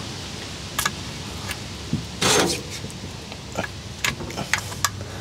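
A handful of sharp metal clicks and clinks of wrenches and loose bolts being handled, with one longer rattle about two seconds in, over a steady hiss.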